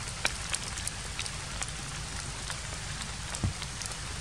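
Light rain pattering on leaves: a steady hiss with scattered sharp drip ticks, and one louder tap near the end.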